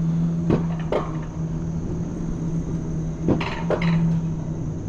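Alpine coaster sled rolling down its rail: a steady rolling hum from the wheels, broken by about four sharp clacks, two in the first second and two more past the three-second mark.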